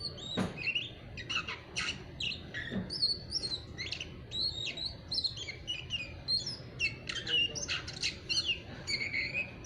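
A young Oriental magpie-robin (kacer) chattering busily: a fast, unbroken stream of short chirps and slurred whistles. This is its 'ngeriwik' stage, the rough, unfinished chatter of a raw bird that has not yet reached its full song.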